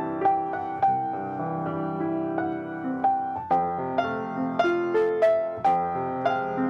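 Solo piano played at a slow, gentle pace: struck melody notes over sustained chords, a new note or chord about every half second, each ringing and fading.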